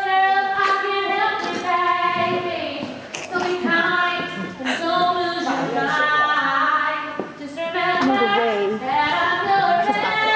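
A woman singing long held notes whose pitch bends and slides, with a few short clicks in between.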